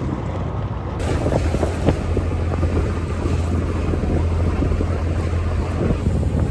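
A boat's engine running with a steady low hum, with wind buffeting the microphone and sea noise.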